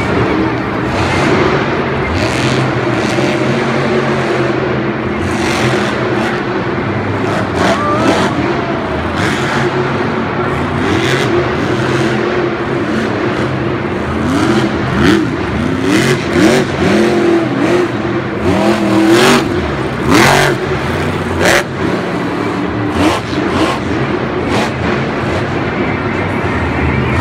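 Monster truck's supercharged V8 engine revving hard through a freestyle run, the pitch climbing and falling repeatedly, with several sharp bangs as the truck hits the dirt.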